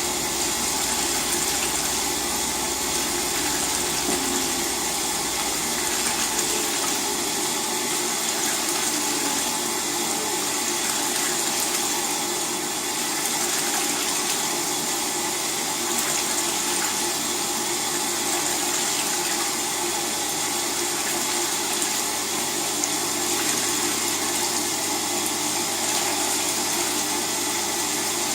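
LG WT-R852 direct-drive washing machine with water running steadily through it mid-cycle. A low rumble fades out about six seconds in.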